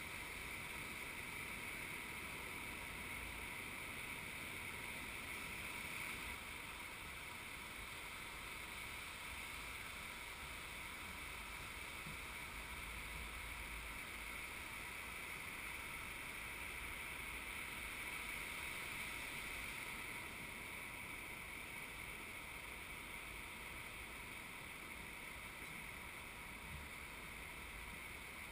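Steady beach ambience: an even hiss of surf and wind with no distinct events.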